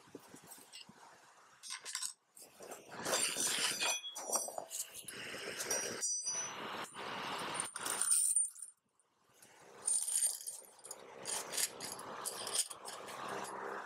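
Steel motorcycle fork parts and tools clattering and clinking as a front fork is worked on by hand. The fork tube and a long T-handle damper-rod tool knock about and are set down with sockets on cardboard, with a few short metallic rings.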